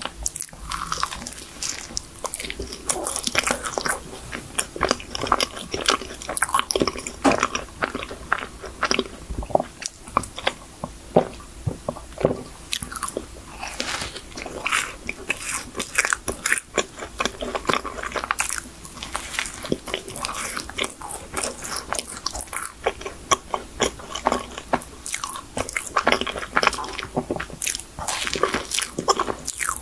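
A person biting into and chewing chocolate cream-filled choux pastries close to the microphone: a dense, continuous run of short crunches from the pastry shell, mixed with chewing.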